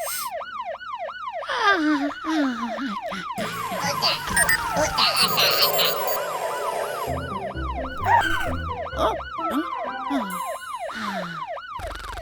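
Cartoon fire-truck siren yelping in quick rising-and-falling sweeps, about three a second. It fades out in the middle under cartoon music and effects, then comes back later. A falling whistle-like glide sounds about two seconds in, and another near the end.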